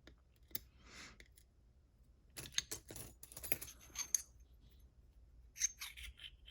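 Light metallic clicks and taps of small lock pins and tweezers being handled while a pin-tumbler lock is taken apart, in a cluster about two and a half to four seconds in and a few more near six seconds.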